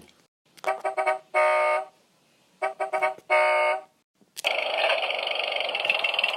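Car horn honking twice in the same pattern: a few quick short beeps, then one longer honk. About four seconds in, a steady rushing noise begins.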